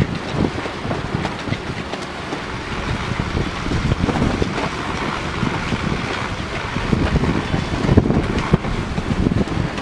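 Wind buffeting the microphone, an uneven low rumble that swells and fades in gusts.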